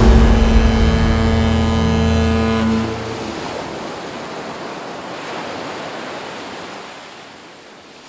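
A long, held horn-like chord that stops about three seconds in, over a rushing noise like ocean surf that then carries on alone and slowly fades.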